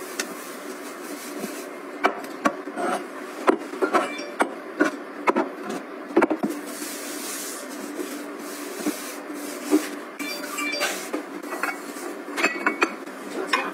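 Household items being handled and set down: scattered light knocks and clicks over a steady low hum, with a short hiss about seven seconds in.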